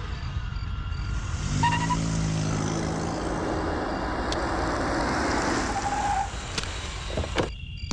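A car approaching with its engine running, the engine and road noise growing to their loudest about five or six seconds in, then cutting off suddenly near the end.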